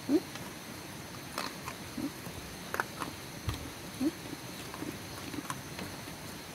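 Dogs eating dry kibble, with scattered short crunches and clicks as it is taken from a hand and a tray. Three brief rising squeaks come about two seconds apart.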